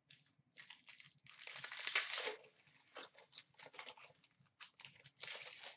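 A trading-card pack's wrapper crinkling and tearing as it is handled and opened by hand, in irregular rustling bursts that are loudest about two seconds in and again near the end.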